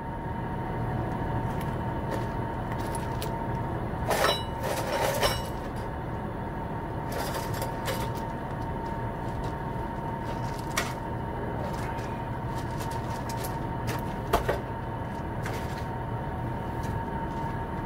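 Metal clanks and knocks as the steel rear end section of a go-kart frame is worked free and lifted out, a few scattered hits over a steady background hum with a faint high tone.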